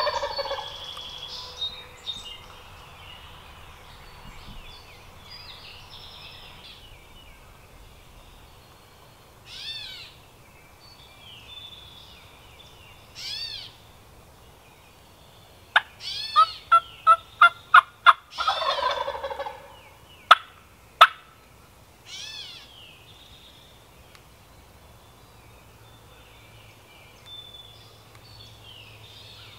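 A wild turkey gobbling twice, once right at the start and again about 19 seconds in. Just before the second gobble comes a quick run of about eight loud, sharp yelps, then two more, with faint songbird calls in between.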